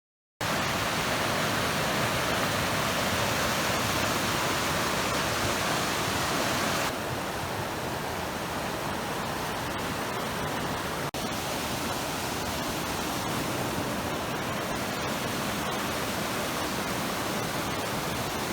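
Steady rushing of running water, like a fast stream or small cascade, a loud even hiss. About seven seconds in it abruptly becomes a little quieter and duller.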